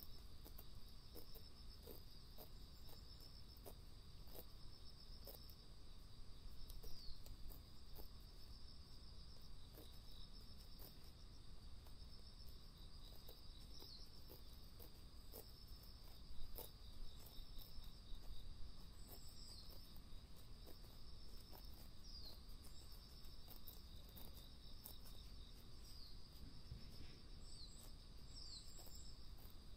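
Steady, faint high-pitched insect chorus outdoors, with a short falling chirp every few seconds and scattered faint clicks.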